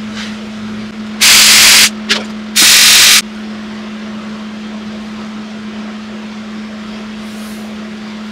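MIG welder tack welding steel tubing: two short bursts of welding arc, each about half a second, the first about a second in, with a brief blip between them, over a steady low hum.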